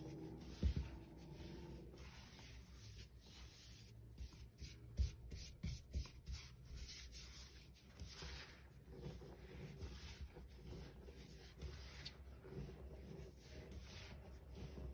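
Hands squeezing, crumbling and rubbing a heap of baking soda powder: a soft, continuous scratchy crunching and rustling, with a few louder low bumps, about a second in and again around five seconds in.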